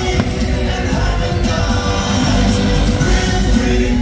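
Fireworks show soundtrack, music with singing over loudspeakers, with a few firework bangs in the mix.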